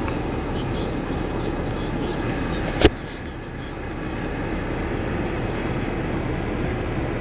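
Steady engine and road noise heard inside a car's cabin, with one sharp click about three seconds in, after which the noise is briefly quieter.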